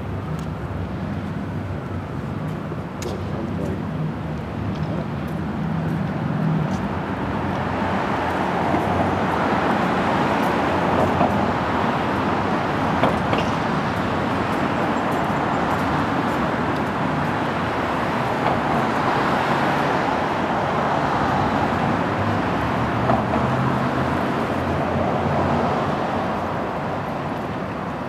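Road traffic noise, a steady rush that swells about a quarter of the way in and eases off near the end, with a low engine hum near the start and again toward the end.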